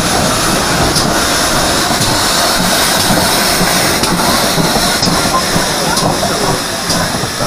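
A train running along the track: a loud, steady rumble and hiss, with short clicks about once a second, typical of wheels passing over rail joints.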